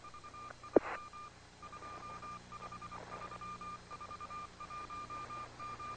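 A high electronic beep tone on the space shuttle's air-to-ground radio loop, repeating in pieces of about half a second with short gaps, over radio hiss. A single click about a second in.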